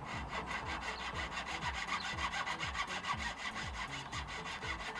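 Hand fretsaw with a fine blade rasping back and forth through a strip of dense purpleheart in quick, even strokes, cutting slowly.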